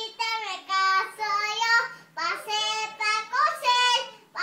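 A young girl singing a song solo, in sung phrases of about a second each with short breaths between them.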